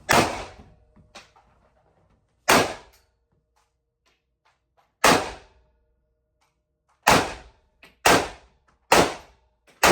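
AK-47 rifle firing single semi-automatic shots: seven sharp reports, the first three about two and a half seconds apart, then four in quicker succession about a second apart, each with a short ringing tail.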